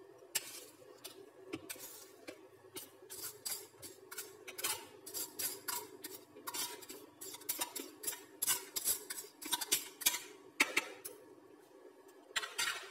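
A spoon scraping and tapping mashed banana off a plastic plate into a plastic bowl of whipped egg batter: a run of quick scrapes and light knocks, thickest in the middle.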